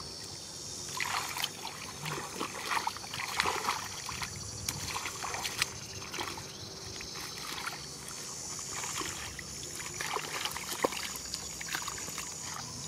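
Hands splashing and groping in shallow muddy water among weeds and sticks: irregular small splashes and trickles of water.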